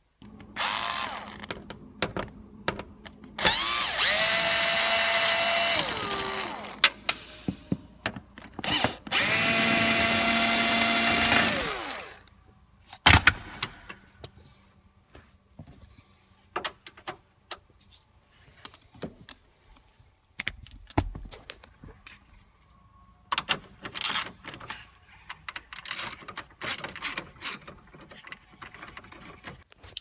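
Cordless power drill-driver backing screws out of truck dash trim: two long runs of a few seconds each, the motor winding up to a steady pitch and winding down as it stops, after a shorter run near the start. Then scattered clicks and rattles of screws and plastic trim being handled.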